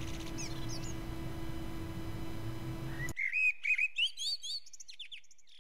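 Small birds chirping, quick rising and falling calls, over a steady low room hum that cuts off about three seconds in; the chirps carry on alone after that and fade out near the end.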